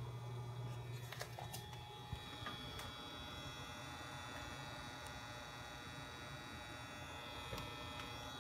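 Alienware Aurora R7 desktop PC making a weird electrical noise: a steady low hum and buzz, strongest in the first second, with a thin high whine over it and a few faint clicks.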